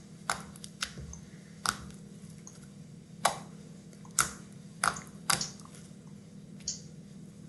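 Sticky homemade slime being squeezed and pulled, giving irregular sharp wet pops and clicks as it sticks and lets go, over a steady low hum.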